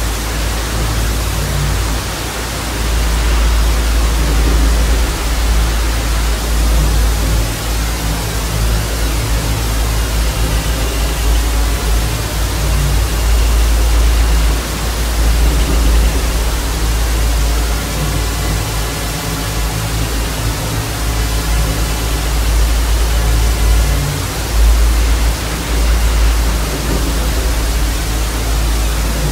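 Loud, steady hiss of TV static over a deep, steady drone of ambient music, with faint wavering tones in the middle.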